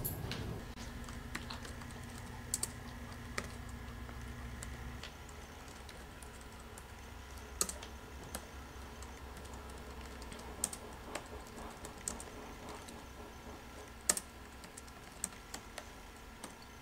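Laptop keyboard being typed on: scattered, irregular key taps.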